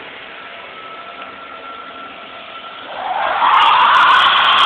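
Ford Ranger pickup's engine running steadily, then about three seconds in it revs up as the rear tyres spin on wet pavement in a burnout, giving a loud, noisy screech.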